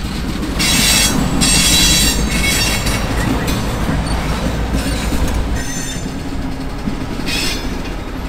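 CSX freight train rolling by with a steady low rumble, its wheels squealing in high-pitched bursts about a second in and again near the end. Road traffic passes close by.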